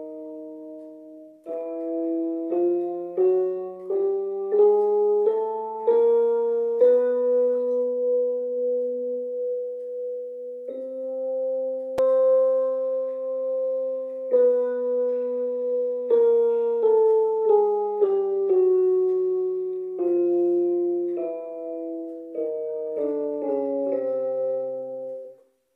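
Electronic keyboard in a piano voice, both hands playing a beginner's exercise in parallel motion. Notes climb step by step, a few long notes are held in the middle, then the notes step back down and stop abruptly near the end.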